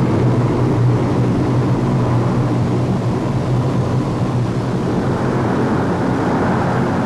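Lockheed C-130 Hercules's four turboprop engines in flight: a steady drone with a strong low hum.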